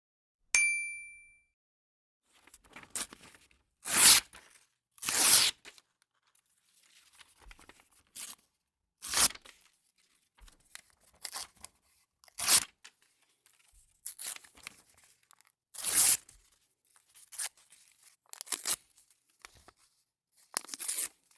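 A single bright ding rings out and fades within about a second. It is followed by about a dozen short, noisy, mostly high-pitched bursts at irregular gaps of one to two seconds.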